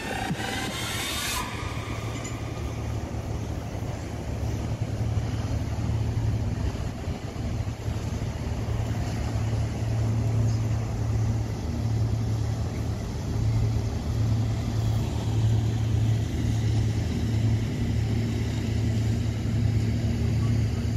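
A motor vehicle running at a steady pace: a low engine drone with a slight pulse, under an even wash of road noise.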